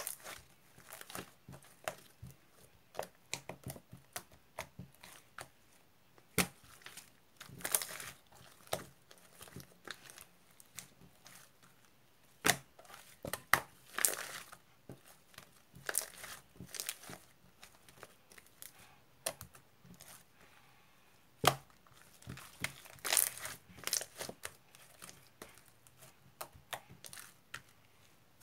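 Irregular crinkling and rustling of a crinkly material, with short tearing sounds and sharp clicks at uneven intervals.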